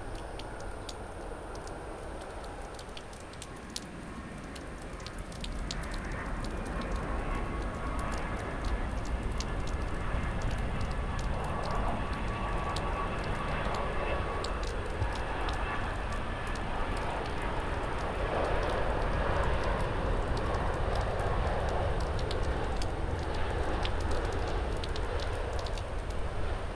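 Jet engines of a British Airways Boeing 787-9 (Rolls-Royce Trent 1000) on final approach: a steady rumble with a faint whine that grows louder as the airliner nears and flares to land, over the hiss of heavy rain.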